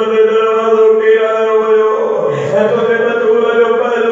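A man's voice chanting in long, held notes, a melodic recitation rather than plain speech, with a short break about two seconds in before the next phrase.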